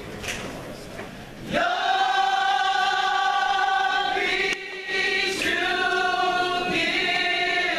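Gospel vocal group singing together, holding long notes. The singing swells up about a second and a half in, breaks off briefly a little past halfway, then comes back on a new note.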